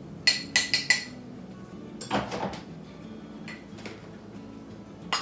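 A metal utensil clinking against a small ceramic bowl while canned mushrooms are scraped out of it: four quick ringing clinks, a short scrape about two seconds in, and another clink at the end.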